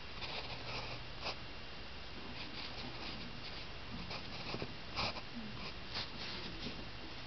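Pencil scratching on lined notebook paper in short sketching strokes, with a few sharper ticks from the pencil tip.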